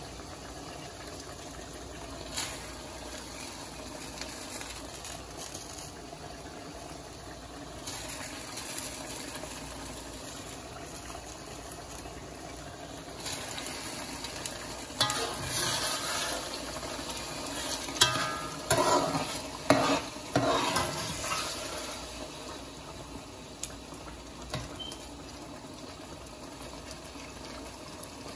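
Tomato sauce simmering in a large metal pot with a steady low hiss; about halfway through, a metal spoon stirs the sauce, scraping and clinking against the pot several times, the loudest knocks a few seconds later.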